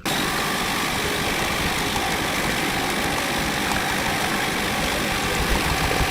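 A loud, heavily distorted scream sound effect, a harsh wall of noise that starts abruptly, holds steady for about six seconds, then cuts off suddenly.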